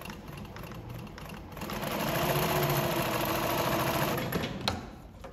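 Consew 146RB-1A-1 industrial walking-foot zigzag lockstitch machine sewing a 2 mm zigzag through denim: it runs quietly at first, picks up to a steady, louder run about a second and a half in, then slows and stops, with a single click near the end.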